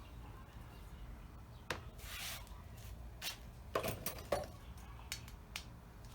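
Hand tools being picked up and handled on a workbench: a handful of irregular light clicks and knocks, several bunched together about four seconds in.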